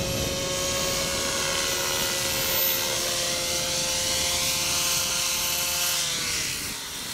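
500-size radio-controlled helicopter flying low with a steady rotor and motor whine. About six seconds in the pitch falls as it comes down to land.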